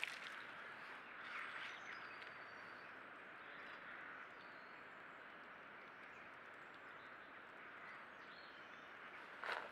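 Quiet woodland ambience through a trail camera's microphone: a steady hiss with a few faint distant bird calls, then a cluster of sharp scratching, rustling sounds near the end from common pheasants feeding in the mud and leaf litter close to the camera.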